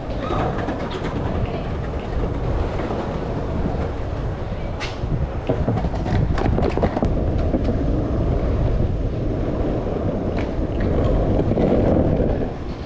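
Skateboard wheels rolling fast over rough pavement: a steady rumble, with several sharp clacks as the wheels cross cracks and joints near the middle.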